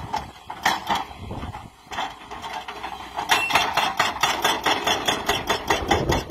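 Excavator-mounted hydraulic rock breaker hammering stone: a few separate blows in the first two seconds, then rapid, evenly spaced blows, several a second, from about three seconds in.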